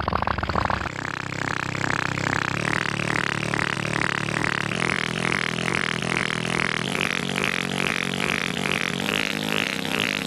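Cartoon mechanical sound effect of a voice trumpet (a periscope-like speaking tube) rising into place: a steady low drone with a rhythmic pulsing about two and a half times a second.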